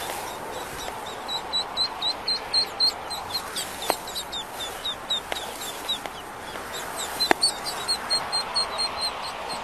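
Ducklings peeping continuously: short, high, slightly falling peeps, several a second, over a steady background hiss. A few sharp clicks cut through.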